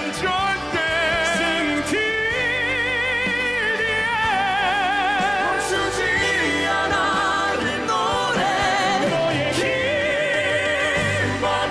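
Male vocal quartet singing a Korean pop ballad in a classical crossover style, lines passing between voices, sung with wide vibrato over steady instrumental backing.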